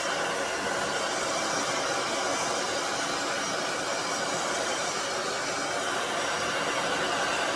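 Aria Beauty infrared ionic blow dryer running on its high speed and high heat settings, a steady airflow rush that holds even throughout.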